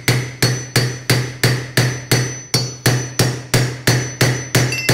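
Light, steady hammer taps on a steel rod driving a ball bearing down onto an induction-motor rotor shaft, about three taps a second, each with a metallic ring. The ring has not yet changed to a solid thud: the bearing is nearly but not fully seated.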